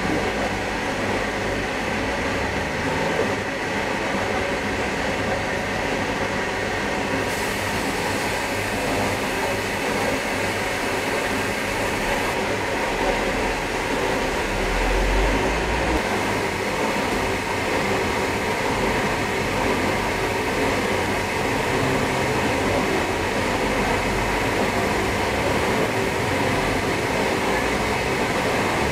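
Compressed-air spray gun spraying a coat of clear lacquer: a steady hiss of air and atomised lacquer, with a faint steady hum underneath.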